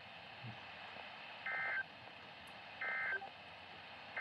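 Emergency Alert System SAME end-of-message data bursts from a weather radio broadcast: short, identical bursts of warbling digital tones, a little over a second apart, two of them with a third starting at the very end, over faint radio hiss. They mark the end of the flood warning message.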